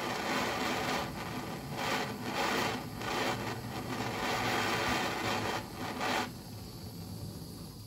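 Handheld propane torch burning with a hiss that swells and fades, its flame playing on a steel chisel tip; the hiss stops about six seconds in.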